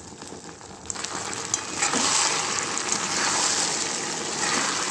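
Chili paneer in a thick sauce sizzling in a wok over a high flame as it is stirred with a spatula. The sizzle is soft at first and grows louder about two seconds in.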